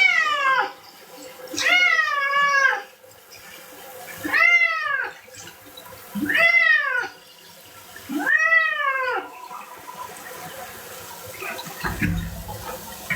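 A domestic cat meowing in protest while being bathed: five long, drawn-out meows about two seconds apart, then quieter near the end.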